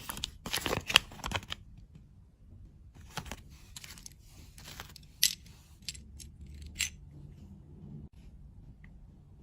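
Candy packaging being handled and opened: plastic wrapper crinkling for about a second and a half, then a few scattered light clicks and taps.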